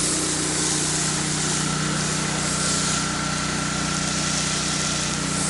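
Gas-engine pressure washer running steadily, with the hiss of its water jet as dirty water is rinsed off a concrete slab.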